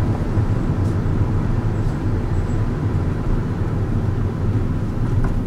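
Steady low rumble of a Mini Cooper Clubman's engine and tyres heard from inside the cabin as the car rolls along at low speed.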